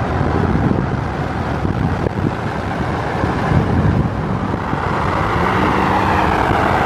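Wind and road noise from a vehicle moving at speed, with a steady engine note coming in about five seconds in as a pickup truck runs alongside.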